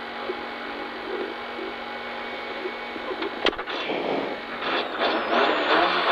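Opel Adam Cup rally car's engine idling, heard from inside the cabin, with a sharp click about three and a half seconds in as first gear is selected. The engine is then revved up and held at high revs, wavering, ready for the start.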